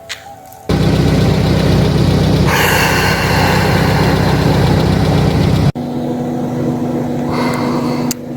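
Four-wheel-drive vehicle's engine running steadily, coming in abruptly and loud about a second in. A little after halfway it cuts to a quieter, steadier engine hum with one held tone.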